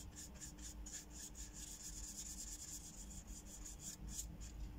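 Paintbrush strokes of gouache on paper: a quick series of soft, scratchy brushings, several a second.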